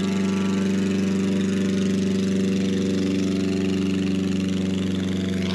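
Airboat engine running steadily at an even speed.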